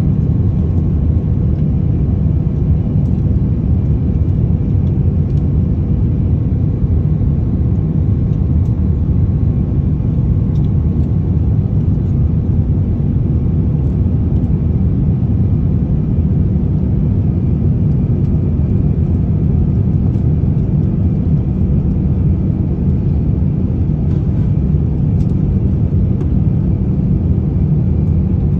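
Steady low rumble of an airliner cabin in flight, heard from a window seat over the wing: jet engine and airflow noise, with a faint steady whine above it.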